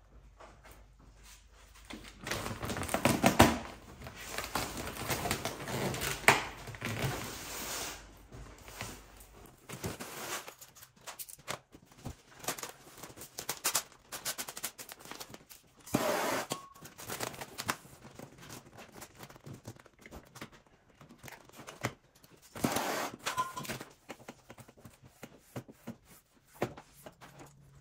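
Vinyl wrap film crinkling and crackling as it is pulled, lifted and stretched over a car's fender by hand, in irregular bursts with sharp snaps.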